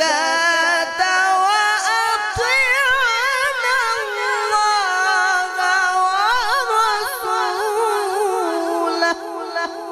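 A male qari reciting the Quran in the melodic, drawn-out tajweed style, holding one long ornamented phrase whose pitch waves up and down through the microphones. The voice eases off a little near the end.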